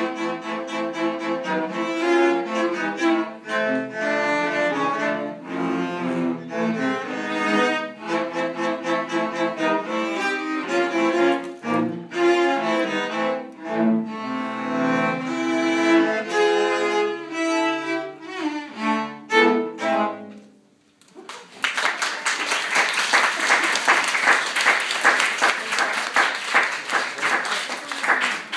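A cello ensemble playing a piece together, several cellos bowing in harmony; the music ends about twenty seconds in. After a short pause, dense clapping from an audience fills the last seven seconds.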